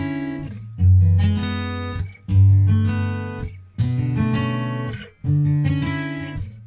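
Background music: acoustic guitar chords strummed about every one and a half seconds, each ringing out and fading before the next.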